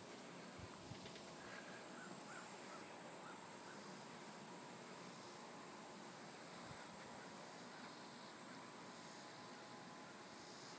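Faint countryside ambience: a steady high insect drone, with a few soft short chirps in the first few seconds.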